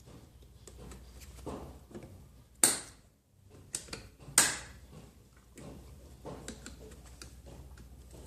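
Light clicks and clinks of metal parts and tools being handled during motorcycle chain work, with two sharp, louder clicks about two and a half and four and a half seconds in.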